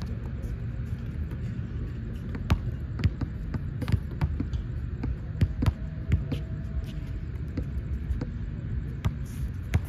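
A flat, underinflated basketball being dribbled and bouncing on a hard outdoor court, giving irregular sharp thuds over a steady low rumble.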